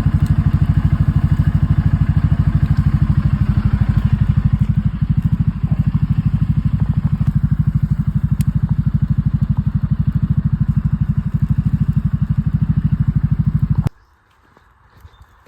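A motor vehicle engine idling with an even low throb, switched off about fourteen seconds in so that it cuts out suddenly.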